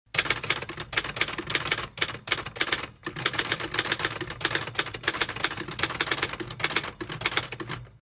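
Typewriter sound effect: a fast, uneven run of key clacks, with brief pauses about two and three seconds in.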